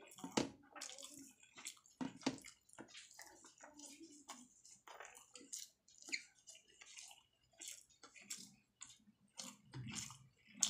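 Close-up wet chewing and lip smacking of someone eating rice and fried potato by hand, with the soft squish of fingers kneading rice on a steel plate; a string of irregular, short wet clicks.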